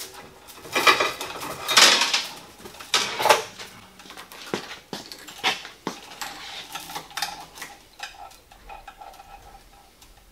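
Steel chain of a manual chain hoist rattling and clinking as it is pulled hand over hand to raise a load. The loudest clatters come in the first few seconds, then a run of sharp clicks, then lighter clinking that fades.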